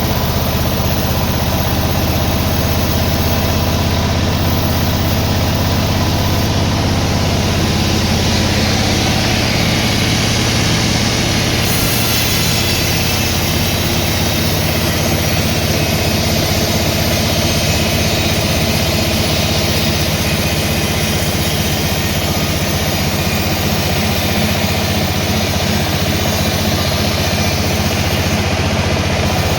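An engine running steadily at an even speed, the power unit of a sawmill.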